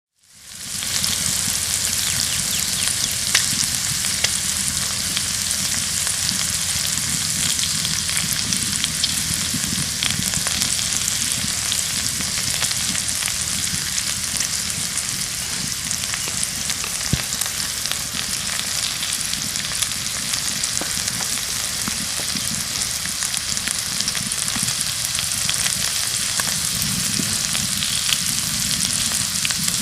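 Pork frying on a hot cooking stone: a steady sizzle with fine spitting crackles, fading in over the first second and then holding even.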